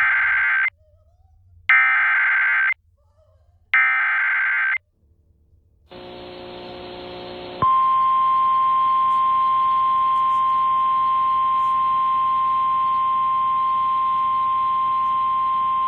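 Emergency Alert System SAME header: three harsh digital data bursts, each about a second long and two seconds apart, announcing a severe thunderstorm warning. After a short pause a faint hum comes in, then the steady single-pitch attention tone near 1 kHz starts about halfway through and holds.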